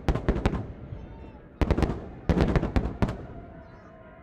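A barrage of aerial firework shells bursting: clusters of sharp, booming bangs in quick succession, easing into a lull near the end.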